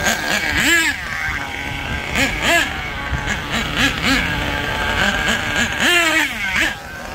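HPI Savage RC monster truck's nitro two-stroke engine buzzing and revving up and down as it is driven. Three big revs rise and fall, and it drops back to a lower idle near the end.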